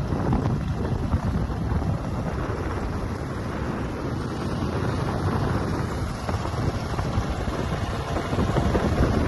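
Wind buffeting the microphone: a loud, steady rush heaviest in the low end, starting abruptly.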